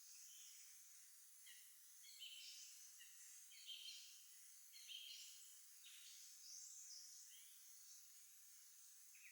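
Songbirds singing faintly: a run of short, high chirps and trills, several a second in places, over a steady background hiss.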